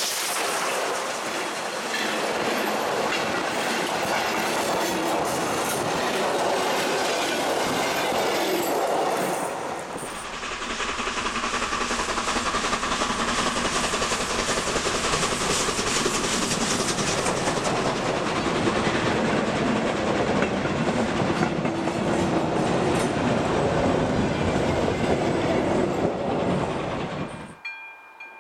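Steam locomotive 464.202 with its train passing close, wheels clattering over the rail joints, heard in two shots with a cut about ten seconds in. Near the end the train sound cuts off abruptly, leaving faint, evenly repeated ringing.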